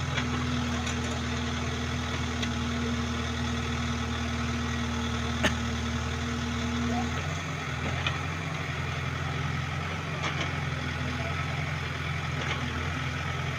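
An engine running steadily at idle, a low even hum. A steadier higher tone in it stops about halfway through, and there is a single sharp click about five seconds in.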